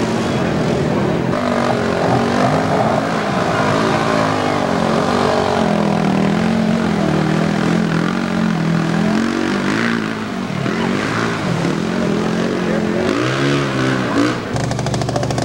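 Quad (ATV) engines revving hard, the pitch repeatedly rising and falling as the quads spin through deep mud. Near the end the sound cuts abruptly to a steady, lower, rapidly pulsing engine note.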